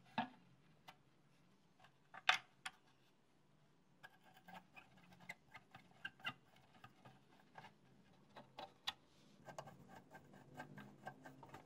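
Faint clicks and taps as parts are fitted into a plastic juicer base, two of them louder near the start, then irregular small ticks of a screwdriver turning screws into the housing.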